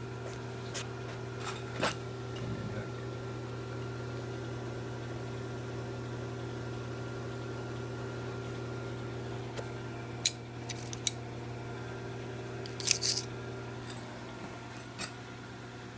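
A steady motor-like hum in a small room, with a few light clicks and scrapes of small objects being handled, the sharpest a couple of seconds in, around ten and eleven seconds in, and a short cluster near the end.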